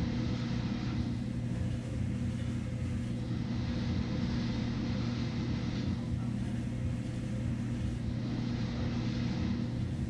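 Steady machine hum with a constant low drone. A softer hiss swells and fades about every four to five seconds over it.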